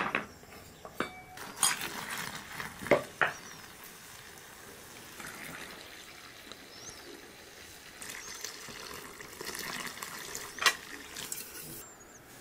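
A few sharp knocks and clinks of kitchen utensils, then milk poured from an enamel jug in a steady stream, with one more knock near the end.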